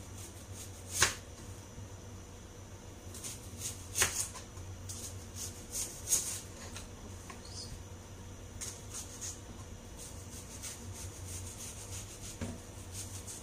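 Kitchen knife slicing a white onion into rounds on a plastic cutting board: a series of short, crisp cuts. The sharpest come about a second in and about four seconds in, with quieter cuts between.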